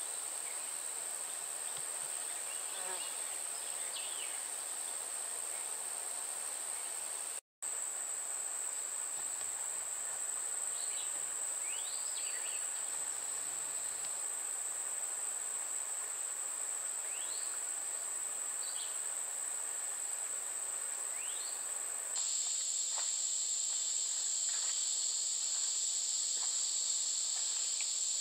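A chorus of insects trilling steadily at a high pitch, with a few faint short rising chirps over it. The trill drops out for an instant about seven seconds in, and grows a little louder and fuller about twenty-two seconds in.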